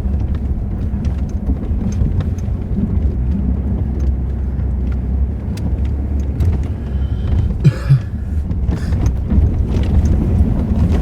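Vehicle running while driving, a steady low engine and road rumble heard on board. Scattered clicks and rattles come through, with a couple of sharper knocks about eight seconds in.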